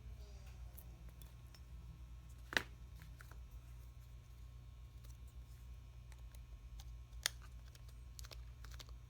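Small clicks and taps from handling smartphone parts and repair tools, with two sharper clicks about two and a half seconds in and near seven seconds, over a steady low hum.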